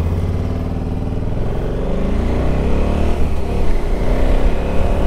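Motorcycle engine, heard from the rider's position, running steadily as the bike moves off, then rising in pitch as it accelerates along the road.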